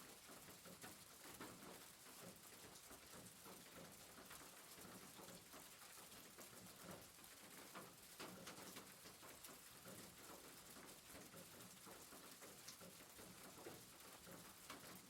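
Rain falling on a roof: a faint, steady patter of dense, irregular drops.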